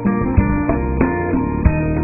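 Background music: acoustic guitar picking a steady run of notes.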